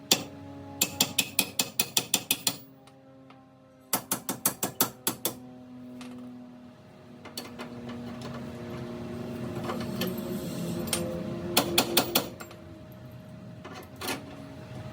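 Hand ratchet wrench clicking in quick runs of strokes as bolts are run in: about ten clicks a second in one run, a second run a few seconds later, and a short run near the end, with a few single clicks between.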